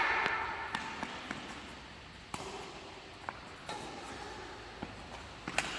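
Badminton rackets hitting a shuttlecock during a rally: a string of sharp, irregular taps, about eight in all, over a faint steady hiss.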